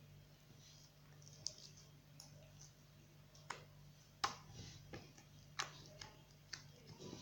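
Slime being kneaded and stretched by hand, giving off a few scattered sharp clicks and pops over a low steady hum.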